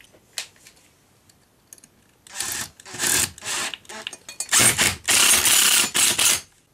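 Cordless drill-driver driving a screw through a steel radiator bracket into a plugged wall hole, in a series of short whirring bursts with a longer run near the end, starting about two seconds in.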